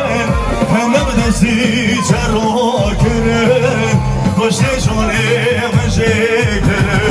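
Loud halay dance music from a wedding band, with a steady pulsing beat, a melody line and a singer.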